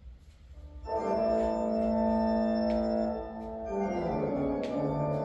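Organ music, sustained chords that start about a second in and move to a lower chord near the middle.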